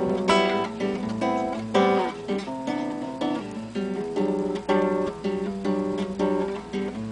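Acoustic guitar (violão) strumming chords in a steady rhythm, an instrumental passage without singing.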